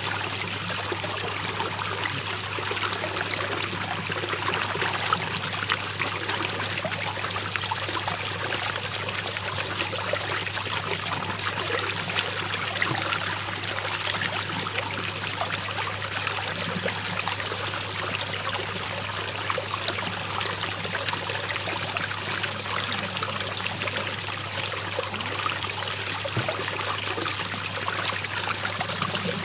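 Water swirling and draining down the hole of a whirlpool, a steady rushing and splashing, with a steady low hum beneath it.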